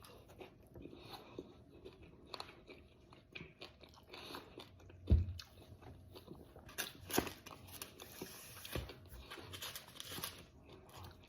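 Close-up chewing and biting of crispy fried chicken wings: irregular crunches and wet mouth clicks, with one louder thump about five seconds in.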